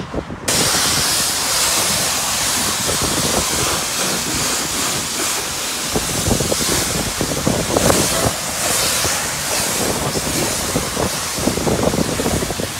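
Self-service car wash high-pressure wand spraying wax onto a car body, a loud steady hiss that starts suddenly about half a second in.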